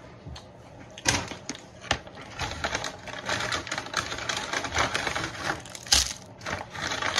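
Brown paper takeout bag rustling and crinkling as a hand rummages inside it, a dense run of sharp crackles starting about a second in, with one loud crackle about six seconds in.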